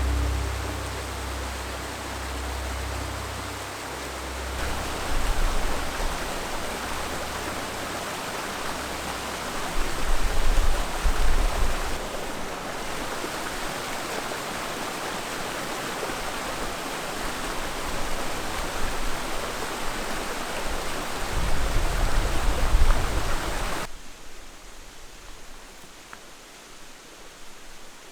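Rushing river water, a steady hiss of flowing water with low rumbles twice. It drops abruptly to a quieter rush about four seconds before the end.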